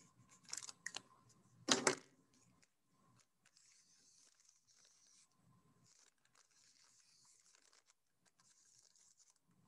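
Felt-tip marker writing on a paper coffee filter: faint scratchy strokes, with two louder ones in the first two seconds.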